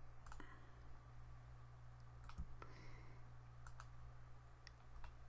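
Faint, scattered clicks of a computer mouse, about half a dozen, over a low steady hum.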